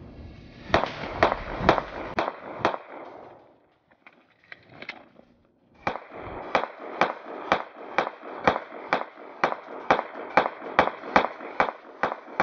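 Pistol fire: a quick string of about five shots, then a pause of about three seconds while the empty magazine is dropped and a fresh one loaded, then a steady string of shots at about two a second.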